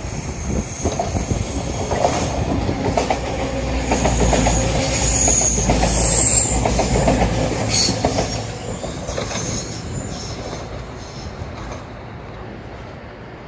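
A train running past on the rails, with high-pitched wheel squeal and a rhythmic clickety-clack of wheels over rail joints. It is loudest in the middle and fades near the end.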